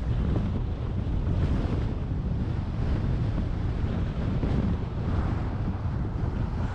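Steady road and wind noise from a car driving along a highway, with wind rumbling on the microphone.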